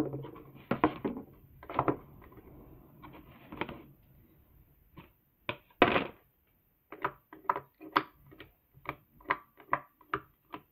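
Homemade slime being smacked onto a table and then poked with fingers. There are a few separate smacks, the loudest about six seconds in, followed by a run of short sharp clicks, about two to three a second, as the fingers press into it.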